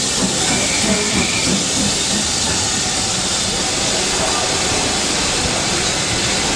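Steam locomotives hissing steadily as a steam-hauled train of coaches pulls slowly out of the station.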